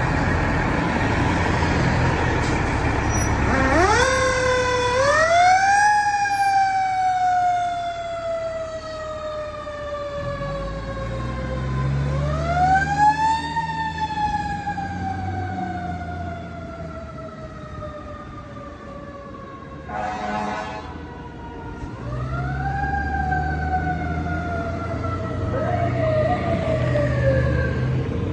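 Fire engine pulling out with its diesel engine rumbling while its mechanical siren wails. The siren winds up quickly to a high pitch and then slowly coasts down, three times over, the typical rise and fall of a coaster siren.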